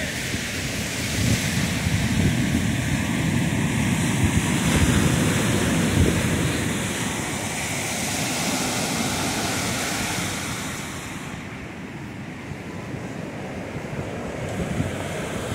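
Ocean surf washing onto the beach, mixed with wind buffeting the microphone in gusts; the wind is strongest in the first half and eases off about ten seconds in.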